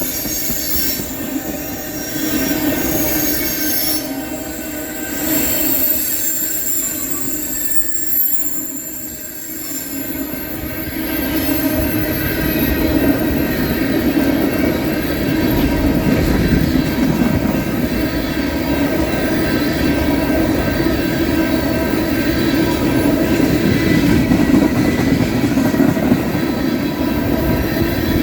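Long freight train of empty ethanol tank cars rolling past: steady wheel-and-rail rumble with high, steady squealing from the wheels. The rumble grows louder about twelve seconds in.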